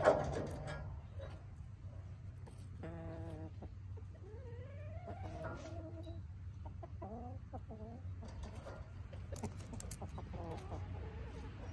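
Hens clucking and giving short calls as they forage, with a run of rising calls around the middle. A brief loud knock comes at the very start, and crisp clicks come near the end.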